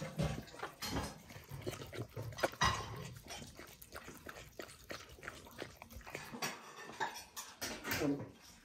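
Dogs eating wet grain porridge from stainless steel bowls: a busy, irregular run of lapping and chewing clicks.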